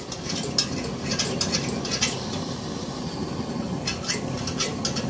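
Kerosene pressure stove burning with a freshly lit yellow flame: a steady rushing of the burner, with scattered light metallic clicks from the tank's valve and pump being worked.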